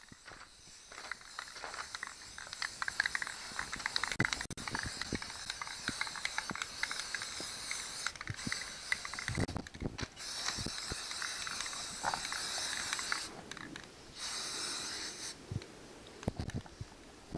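Aerosol spray-paint can hissing in long bursts: one of about eight seconds, then two shorter ones with brief stops between. Scattered small knocks and clicks come from the can being handled.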